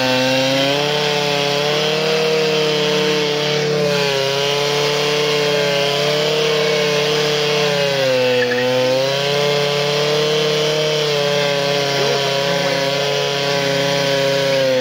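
Peugeot Fox 50cc two-stroke moped engine held at high revs in a burnout, the rear tyre spinning on the spot. The revs hold steady at a high pitch and sag briefly about eight seconds in.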